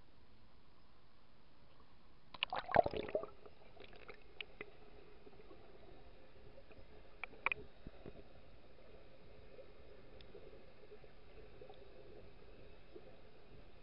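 Water splashing a little over two seconds in as a waterproof camera goes under the lake surface, followed by the muffled, steady sound of being underwater with a few clicks and gurgles.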